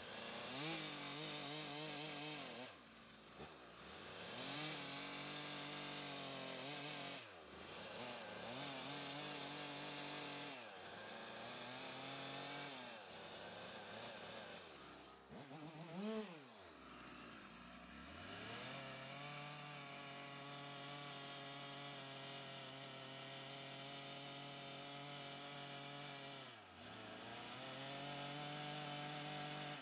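Chainsaw running while its bar shaves and smooths the inside of a log's saddle notch, used as a finishing tool. The engine speed rises and falls, dropping back several times between passes and giving one short sharp rev about halfway through.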